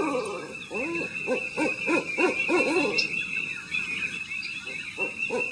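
Owls calling at night in quick series of short hoots that rise and fall in pitch, several a second, falling silent for a second or so past the middle and starting again near the end. A steady high cricket trill runs underneath.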